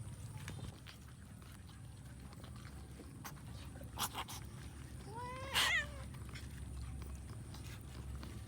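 A cat meows once, a short call that rises and then falls in pitch, about five seconds in. Two sharp clicks come about a second before it.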